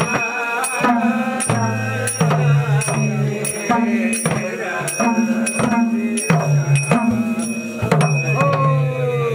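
Men singing a traditional Gurung song while beating hand-held drums, about three drum strokes every two seconds, the drum alternating between two low pitches. Near the end one voice holds a long falling note.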